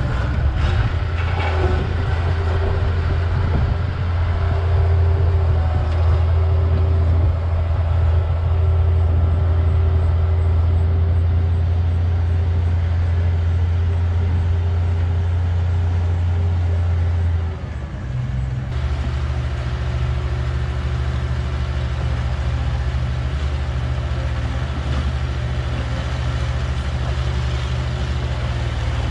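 Bulldozer diesel engine running steadily under load while grading dirt. Its low drone dips briefly about 18 seconds in and then carries on at a different pitch.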